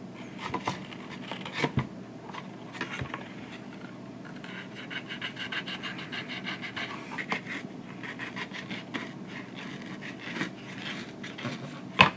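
Razor blade cutting and scraping at a transmission filter's felt media, with the glued felt pulled and torn away from the filter housing in a fast rasping run midway through. One sharp click near the end is the loudest sound.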